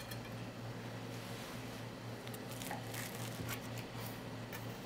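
Knife cutting through the crisp crust of a luchnik, a Bulgarian pastry pie, on a ceramic plate: faint scattered crackles and light clicks, mostly in the second half, over a steady low hum.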